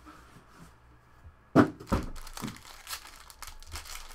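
Foil wrapper of a sealed trading-card pack crinkling as it is handled and torn open. The first second and a half is quiet, then comes a sudden loud crackle, followed by a run of short crinkles.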